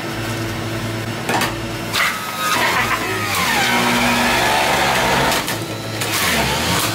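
Breville centrifugal juicer running and shredding kale as it is pushed down the feed chute. There are a couple of knocks near the start, then from about two and a half seconds in the machine grows louder and its whine slides lower as the motor takes the load of the greens.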